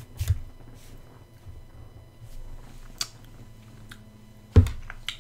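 A person tasting a hot sauce: a few scattered mouth noises and breaths, with a louder thump about four and a half seconds in.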